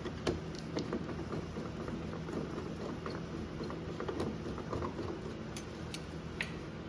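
Scattered small clicks and taps of hand tools and loose hardware as a car door's interior trim is worked on, over a steady low hum.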